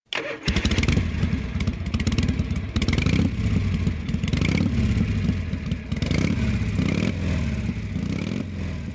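Motorcycle engine running and being revved again and again, its pitch rising and falling.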